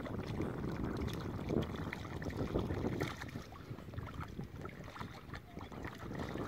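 Shallow river water splashing and lapping as a small dog wades in it, with wind noise on the microphone.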